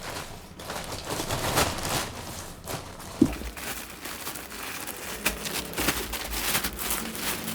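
Packaging being handled and unwrapped by hand: irregular crinkling and rustling with scattered crackles, and one sharp click a little over three seconds in.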